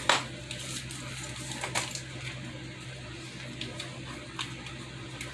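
Handling noise from RC kit parts being picked up and set down: a sharp click just after the start, another just before two seconds in, and a few fainter ticks, over a steady low hum.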